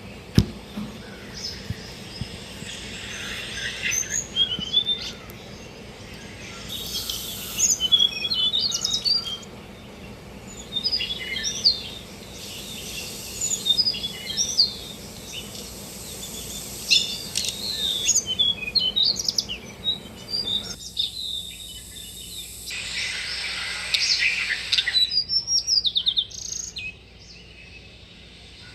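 Tickell's blue flycatcher singing: short, high, twittering phrases in bouts, with pauses between them.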